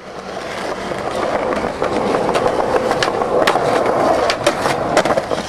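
Skateboard wheels rolling over rough pavement, fading in at the start, with scattered sharp clicks that come more often in the second half.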